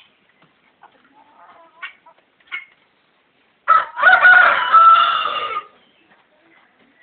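Rooster crowing once, a loud pitched call lasting about two seconds near the middle, after a few short, faint clucks.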